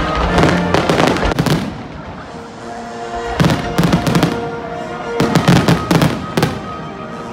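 Fireworks bursting overhead: rapid clusters of bangs and crackles in three bouts, about a second or so apart, with music playing steadily underneath.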